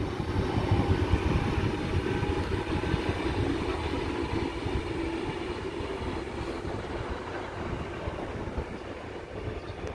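Sydney double-deck electric suburban train running past on the tracks: a steady rumble of wheels on rail with a faint motor hum, slowly fading as it moves away.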